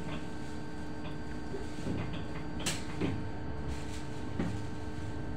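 Steady electrical hum inside an electric bus cabin, a few fixed tones at an even pitch, with several short knocks and clicks, the sharpest one about halfway through.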